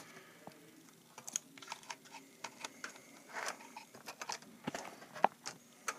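Scattered light clicks and taps of fingers on a laptop's plastic underside and a RAM module as a stick of memory is worked out of its slot.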